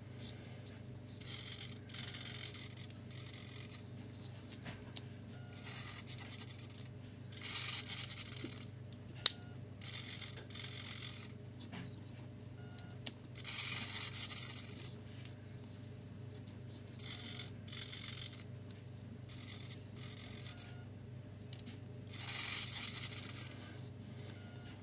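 Small servo motors buzzing in about nine short bursts as they swing the semaphore arms of a 4mm scale model bracket signal off and back on, over a steady low hum. A single sharp click about nine seconds in.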